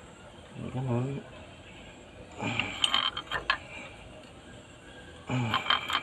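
A pipe wrench turning an improvised screw puller on a Cat 3116 diesel cylinder head to draw out a broken injector sleeve. It makes metallic clicking and creaking in two spells of strokes, one about halfway through and one near the end.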